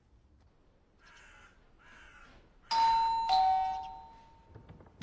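A two-tone doorbell chime rings about halfway through: a higher note, then a lower one, both fading away over about two seconds. Before it come two faint caws.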